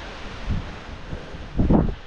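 Strong mountain wind buffeting the camera microphone as a low, rushing rumble, with louder gusts about half a second in and again near the end.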